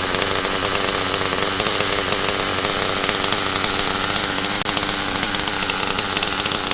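Nitro RC car's small glow-fuel two-stroke engine running steadily at an even speed, a buzzing, chainsaw-like note.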